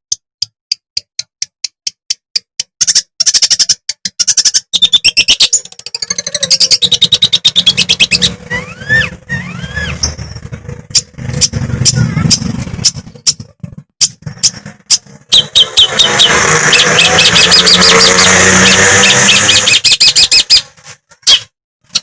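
Long-tailed shrike (cendet) singing: fast runs of sharp ticking notes, a few rising-and-falling whistles near the middle, and a dense, harsh chattering run in the last part.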